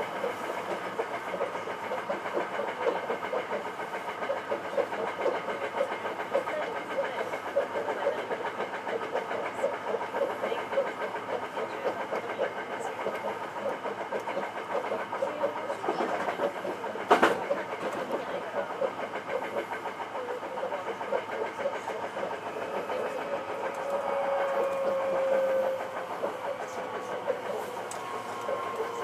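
Hankyu 9300-series electric train running at speed, heard from inside the train: steady running noise with fast, even wheel clatter, one sharp loud knock about seventeen seconds in, and a whining tone that comes in twice near the end.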